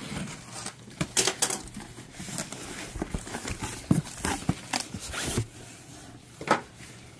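Box cutter slitting the packing tape on a cardboard shipping box, then the cardboard flaps pulled open and a cardboard insert lifted out: irregular scraping, ripping and rustling of cardboard with a few sharper knocks.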